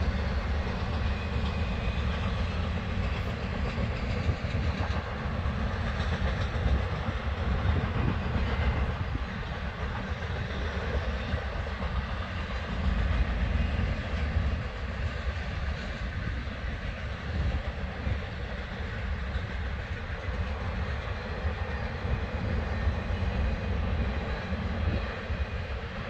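Long intermodal freight train loaded with containers and trailers rolling steadily past at a distance: a continuous low rumble of wheels on rail with some clickety-clack.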